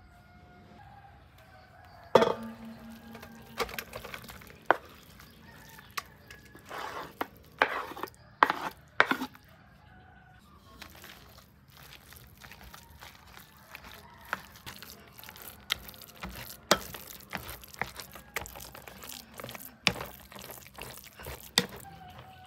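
Cooking sounds: irregular knocks and clinks of utensils against dishes and pots, with a few longer scraping or stirring strokes among them. The loudest knock comes about two seconds in.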